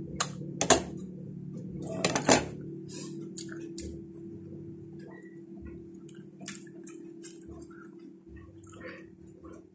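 Eating cooked bananas: a few sharp clinks of a spoon against the plate in the first couple of seconds, then soft chewing and small mouth clicks, over a steady low hum.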